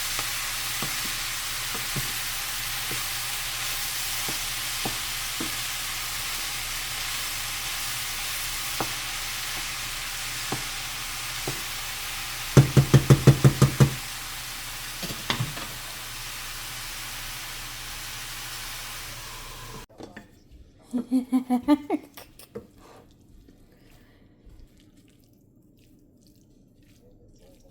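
Corn cut off the cob sizzling in grease in a frying pan, with scattered small knocks of stirring; about 13 s in, a quick run of loud taps against the pan. The sizzle cuts off suddenly about 20 s in, leaving a much quieter stretch with a brief run of pulses.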